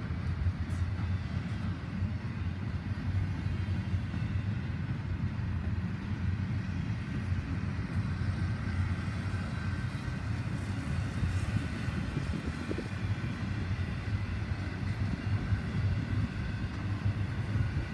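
CSX double-stack intermodal train's container cars rolling past, a steady rumble of steel wheels on the rails.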